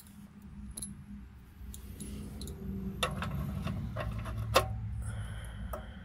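A few scattered metallic clicks and clinks of a wrench on the oil-pan drain plug as it is tightened after an oil change, with the loudest click a little over four and a half seconds in, over a low steady hum.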